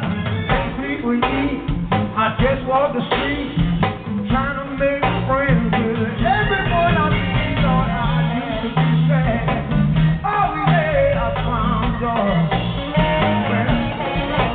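Live band music with singing over drums, hand drums and electric guitar.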